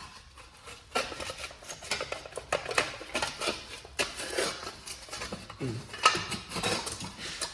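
Loose sheet-metal brake splash guard being handled and rattled, a quick run of light metallic clinks and clanks starting about a second in. Its bolt holes are worn oversized, so it sits loose and clatters.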